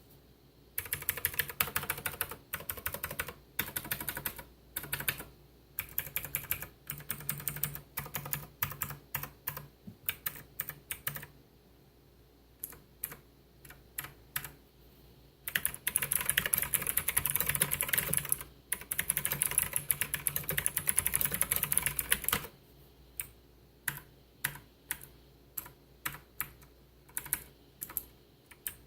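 Typing on the Xenics STORMX ZERO mechanical keyboard with clicky blue switches: fast runs of key clicks in bursts, a long continuous flurry around the middle, then single keystrokes pressed one at a time about once a second near the end.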